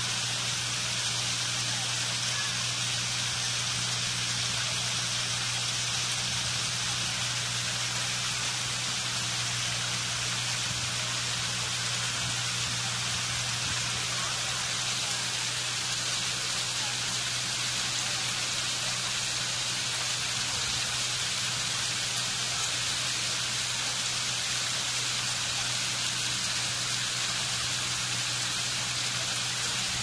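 Water of a man-made stone waterfall pouring and splashing onto stacked stones, a constant even rush, with a steady low hum underneath.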